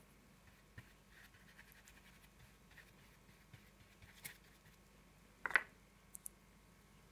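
Faint, soft dabbing and scratching of a round watercolour brush laying a wash onto wet 300gsm watercolour paper, with a few small clicks and one brief louder sound about five and a half seconds in.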